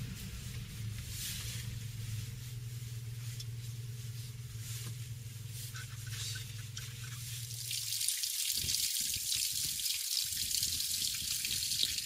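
A car driving on a wet road: a steady low engine hum with hiss above it. About two-thirds of the way in the engine sound stops, and a crackling hiss of water droplets takes over.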